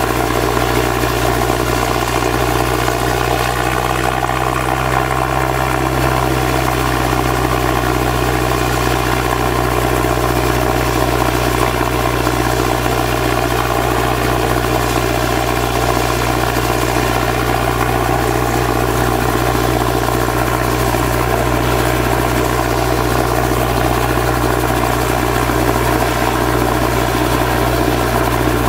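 Robinson R22 helicopter idling on the ground: its four-cylinder piston engine runs steadily with the main rotor turning.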